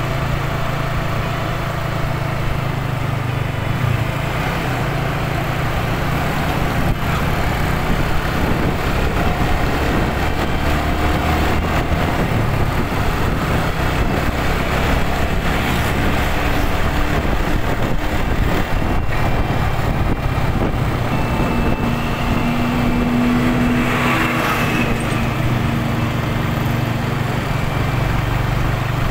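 Motorcycle engine running at riding speed, with wind and road noise and other vehicles' engines close by.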